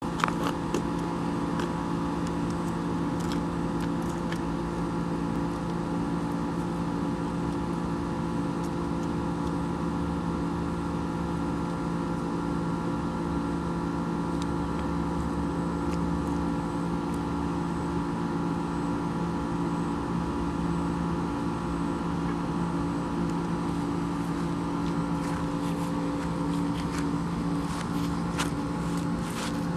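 ASP 91AR two-stroke glow engine on a model aeroplane idling steadily at an even pitch, with a few light clicks near the start and near the end.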